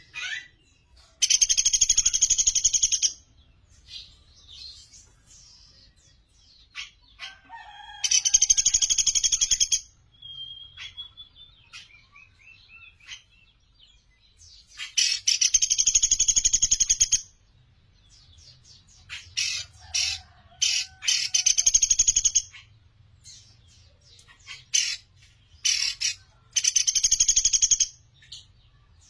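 Pelatuk beras, a small woodpecker, calling in a series of rapid, high-pitched trills, each one to two seconds long, with short single chirps between.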